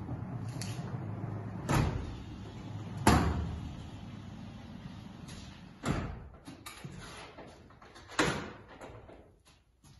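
A four-panel glass sliding door being closed: the panels rumble along the track on their rollers for the first few seconds, with sharp knocks as panels come to a stop, the loudest about three seconds in, then two more near six and eight seconds.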